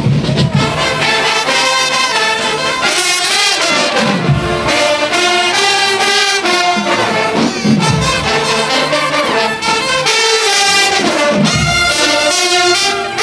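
HBCU marching band brass section of trumpets and larger horns playing a loud tune together in full, sustained chords.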